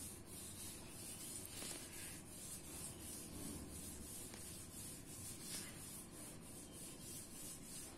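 Metal spoon stirring thick tomato sauce in a metal saucepan: faint, repeated rubbing and scraping strokes against the pot.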